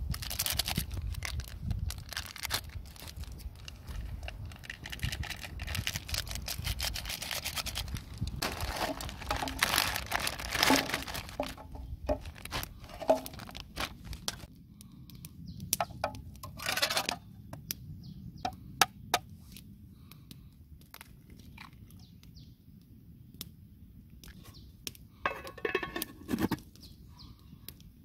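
Instant ramen seasoning sachets torn open and handled over an aluminium mess tin, with the crackly rustle of the packets and their contents shaken onto the noodles, then scattered clicks. Near the end the metal lid is set on the mess tin with a short ringing clank.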